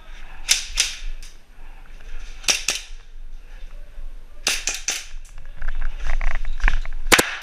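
Airsoft guns firing: sharp cracks in quick groups of two to four, about half a second, two and a half and four and a half seconds in, then a loud pair near the end.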